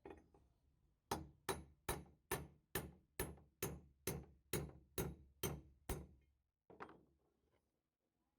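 Hammer blows: about a dozen evenly spaced strikes at a little over two a second, each ringing briefly, then a single further blow after a short pause.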